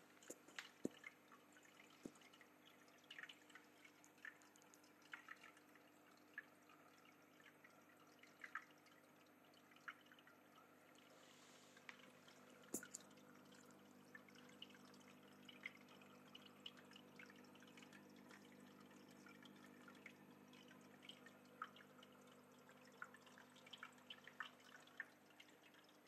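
Faint dripping and trickling water in a saltwater aquarium's sump, with many small scattered drips over a low steady pump hum.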